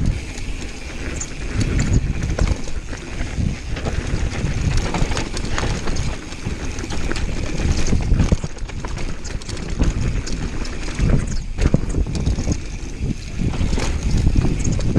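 Mountain bike riding fast down a dry dirt trail: a constant rattle and clatter of the bike with many small knocks as it goes over bumps, over tyre noise on dirt and wind rumbling on the microphone.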